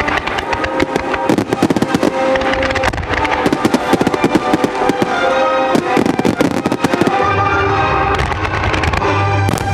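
Aerial fireworks going off in a rapid, dense barrage of bangs and crackles during a finale, thinning out about seven seconds in, with music playing underneath.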